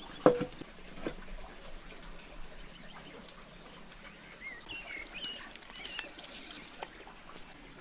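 An aluminium cooking pot set down on a concrete stove with a sharp metallic clank that rings briefly, then a lighter knock. Birds chirp in the background, with a few light clicks as firewood is handled.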